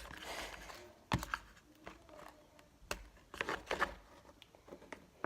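Handling noise from slime-making materials: a few sharp clicks and taps with light rustling, the loudest tap about a second in.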